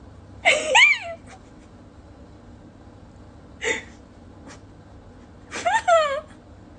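Three high, whiny, whimpering cries that slide in pitch: one about half a second in, a short one midway, and a longer one near the end that falls in pitch.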